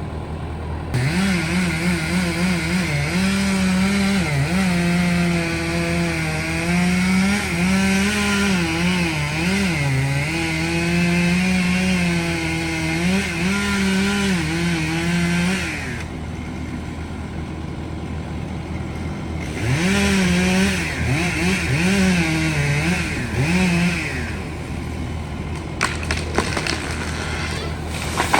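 Chainsaw at full throttle cutting into a tree trunk, its pitch dipping and wavering as the chain bites into the wood. It eases off for a few seconds in the middle, then cuts again. A few brief sharp cracks come near the end.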